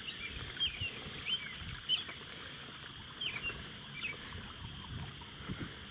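Water running and splashing steadily from the pond's overflow chute, with scattered short high chirps over it.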